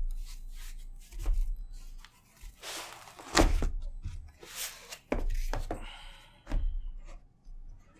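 Cardboard box and packaging being handled during an unboxing: several dull thunks and low bumps, with short rustling, sliding scrapes in between.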